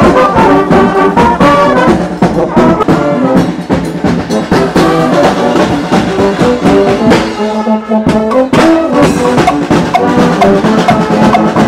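A marching street brass band playing a tune: sousaphone bass under higher brass horns, with drum beats keeping time.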